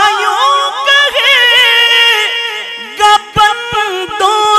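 Naat recitation: a voice singing long, ornamented, wavering notes over a steady held note. There are several short sharp knocks in the second half.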